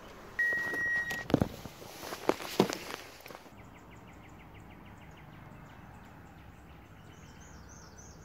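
A steady beep lasting under a second and several sharp knocks, then quiet outdoor ambience of evenly repeating insect-like chirps with a few bird calls near the end.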